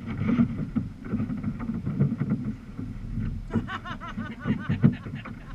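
Water sloshing and slapping against a sea kayak's hull, with wind buffeting the microphone. Around the middle, a voice calls out a few times from some way off.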